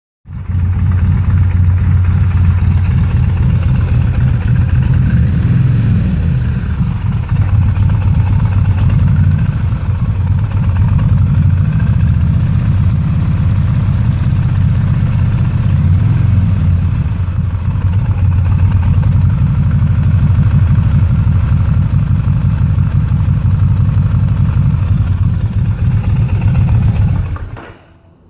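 2002 Kawasaki Vulcan 1500 Mean Streak's V-twin engine idling steadily with the tick noise its owner is recording to check, then stopping near the end.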